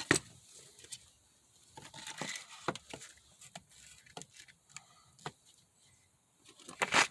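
Scattered clicks and light knocks of handling a soldering iron and plugging in its cord, with a sharp click right at the start and a louder, brief rustling burst near the end.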